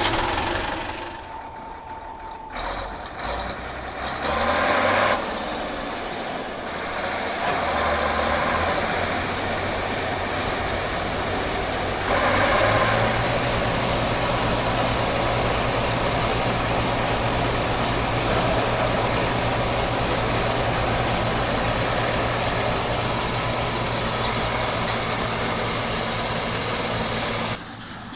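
Diesel farm machinery running. First an Ursus C-360 tractor engine just after starting, uneven, with a few short hissing bursts. Then, from a little before halfway, a Bizon Z056 combine harvester's engine and threshing gear run at a steady, even pitch.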